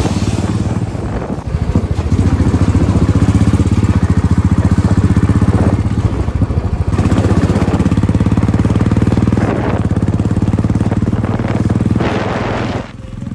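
Motorcycle engine running under way with a fast, even pulse, heard from the rider's seat. It eases off briefly about a second and a half in and again around six to seven seconds, and drops away sharply near the end.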